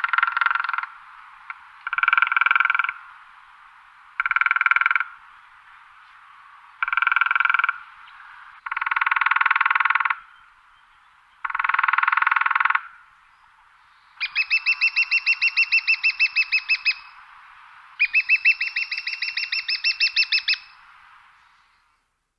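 Woodpecker drumming on wood: six short, rapid rolls about two seconds apart, then two longer rolls of slower, clearly separate strokes with a higher ringing pitch.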